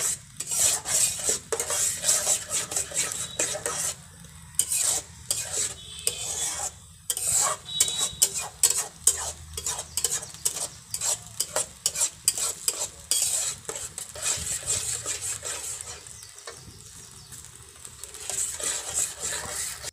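A metal spoon scraping and knocking against a metal pot in rapid, irregular strokes as a thick semolina-and-milk filling is stirred, with the mixture sizzling in the pot. The strokes ease off briefly near the end.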